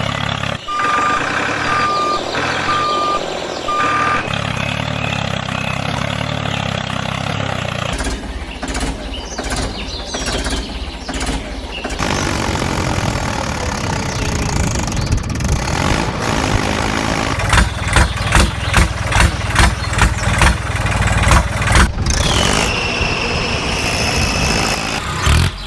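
A vehicle engine running, with a reversing alarm beeping three times about a second in. The sound changes abruptly several times, and there is a run of quick pulses past the middle and a falling whine near the end.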